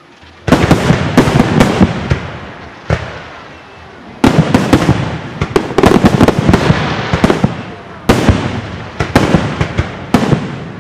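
Aerial fireworks going off in rapid volleys: clusters of sharp bangs, several a second, each trailing off in a fading rumble. The bangs come in bursts with short lulls between them.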